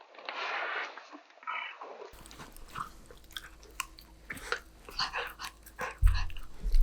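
Golden retriever puppy biting and chewing a snack, a run of sharp crunching clicks, with a loud low thump about six seconds in.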